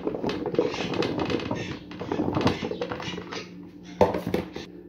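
Raw pumpkin cubes being scraped off a plastic board and clattering into a plastic bowl, a dense run of irregular knocks and taps. A single sharp knock about four seconds in, as the cubes are pushed around in the bowl by hand.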